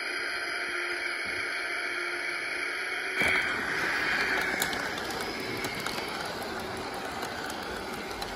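Model Long Island Rail Road train rolling past on model railway track. The wheels rumble and tick over the track, starting suddenly about three seconds in and fading slowly, over a steady humming drone.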